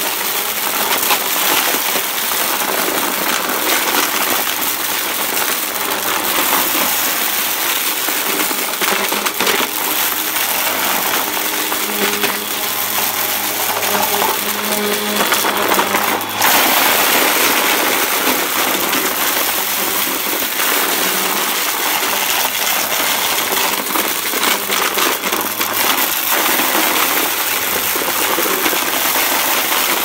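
Hoover upright vacuum running while sucking up a spread of small hard debris, with a steady motor whine under a dense, continuous rattle of beads, buttons and plastic and metal bits clattering up through the nozzle. About halfway through, the sound briefly dips and then turns brighter and hissier.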